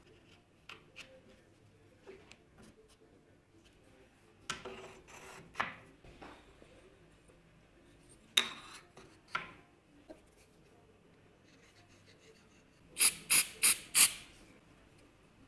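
Small aluminium angle pieces and wood blocks handled on a metal saw table, with light rubs, scrapes and knocks. Near the end an aerosol can sprays four short hisses in quick succession.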